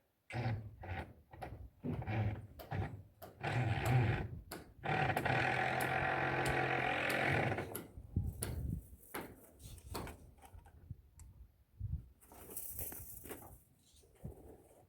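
Irregular knocks and clatter, with a small motor running steadily for about two and a half seconds in the middle and a brief hiss near the end.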